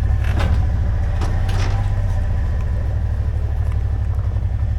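Car engine running with a steady low drone.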